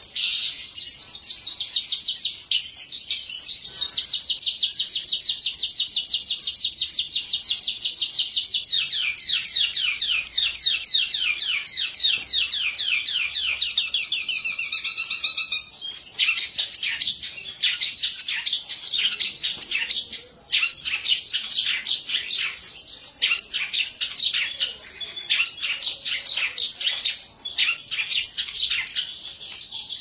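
Caged lark singing continuously: a long, even, high trill for the first several seconds, then rapid runs of sweeping notes and varied phrases with brief breaks.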